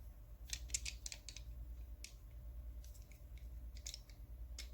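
A set of 10mm sockets being handled: scattered light metallic clicks and taps, with a cluster about a second in and a sharper click at the end, over a low steady hum.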